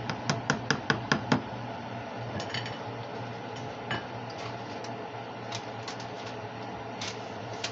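A cooking utensil tapping quickly on the rim of a saucepan, about eight sharp clicks in the first second and a half, then a few light knocks, over a steady low hum.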